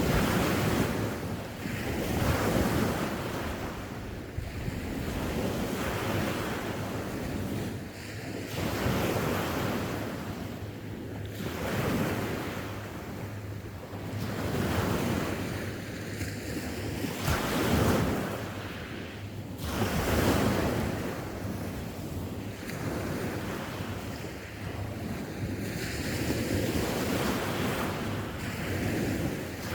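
Sea waves breaking and washing up the shore, swelling and falling back every few seconds, with wind rumbling on the microphone.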